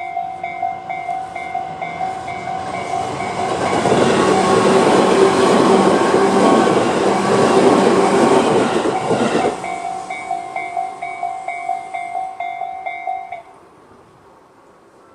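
Tobu-style electronic level-crossing alarm (Tobu "sound C") ringing as a steady train of rapid repeated tones. A Tobu 10000-series electric train passes through the middle of it, its passing rumble and wheel noise the loudest thing for about six seconds. After the train has gone, the alarm stops abruptly a couple of seconds before the end.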